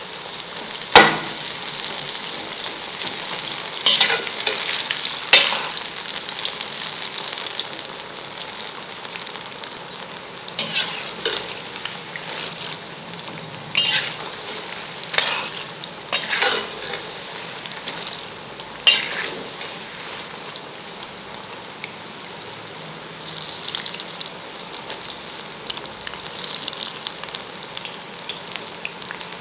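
Batter-coated cauliflower florets deep-frying in hot oil in a kadai, a steady bubbling sizzle. A perforated steel skimmer stirring them knocks and scrapes against the pan with several sharp clicks.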